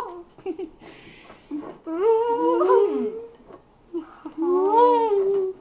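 Girls humming with their mouths full, faces down in the cake: a long hum about two seconds in where two voices glide against each other, and another held hum near the end.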